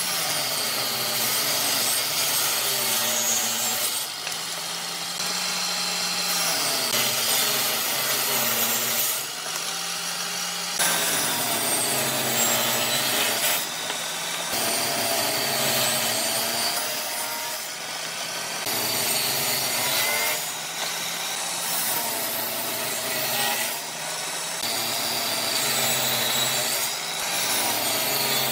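Table saw running and ripping strips of wood, a steady motor hum under the blade's whine, whose pitch dips and recovers as each piece is pushed through. The sound changes abruptly every few seconds from one cut to the next.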